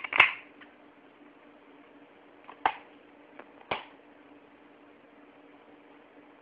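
Plastic DVD case being handled: a sharp cluster of clicks at the start as the disc is pressed onto the case's centre hub, then two more sharp plastic clicks about a second apart as the case is shut.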